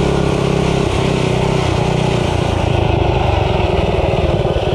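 The mini bike's sideways-mounted big-block Briggs & Stratton engine, heard close from the onboard camera and running hard under load at speed. Its note wavers a little as the throttle changes.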